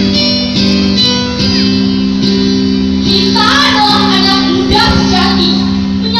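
Amplified music with held chords, joined about three seconds in by a girl's voice singing into a microphone.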